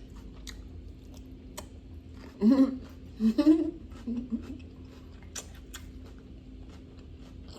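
Close-up chewing and wet mouth clicks of a person eating grilled salmon salad. A few short voiced sounds come in a cluster about two and a half seconds in and are the loudest thing here. A faint steady hum runs underneath.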